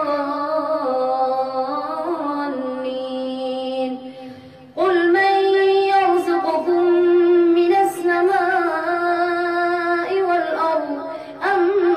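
A boy's voice reciting the Quran in melodic tajweed, drawing out long held notes. There is a brief pause for breath about four seconds in.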